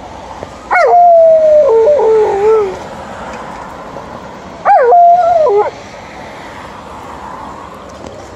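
Alaskan Malamute howling twice: a longer howl of about two seconds, then a shorter one of about a second. Each opens with a high note that slides down into a held lower tone, the first dropping lower again near its end.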